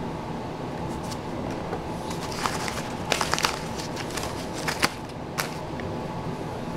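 Baseball cards and their opened paper pack wrapper being handled, with a cluster of sharp clicks and crinkling rustles between about two and a half and five and a half seconds in as cards are picked up and set down on a wooden table. A steady low hum runs underneath.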